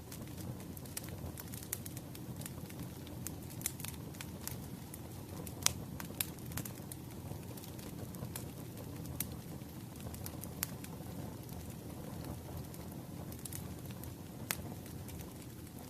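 Wood fire burning: a steady low rumble of flames with irregular sharp crackles and pops from the burning logs. The loudest pop comes about six seconds in.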